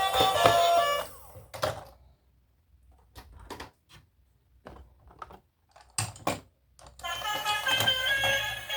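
A series of about ten irregular sharp clicks and taps, like hard plastic toys being handled. Background music stops about a second in and comes back near the end.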